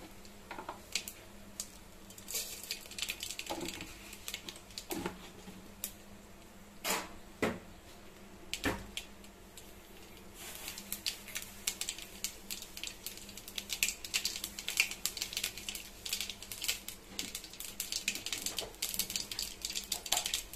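Hot oil crackling and spitting in an aluminium pot as the seeds in it pop, a tempering on the stove. The crackle is sparse at first and turns into a dense rapid crackling about halfway through, with a few louder knocks before that.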